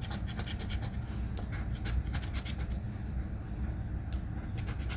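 A scratch-off lottery ticket being scratched in quick short strokes, with a steady low rumble underneath.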